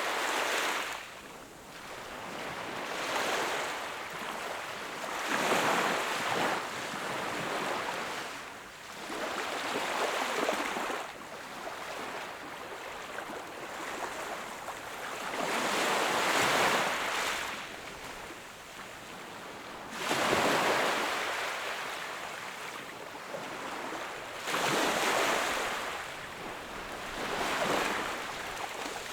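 Small ocean waves breaking and washing up a shore in a slow, uneven rhythm, one surge every three to four seconds with quieter wash between.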